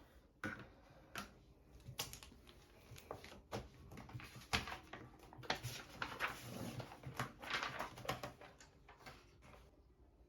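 Faint, irregular clicks, taps and short rustles of small objects being handled, busiest through the middle.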